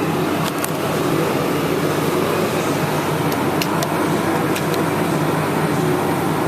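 Steady mechanical hum of running refrigeration plant, a compressor and condenser fan droning at an even pitch, with a few faint clicks over it.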